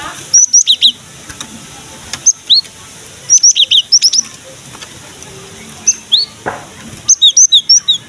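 Cinereous tit (gelatik batu) calling in repeated bursts of short, sharp, high notes, each note slurring downward, several notes to a burst, with pauses between bursts.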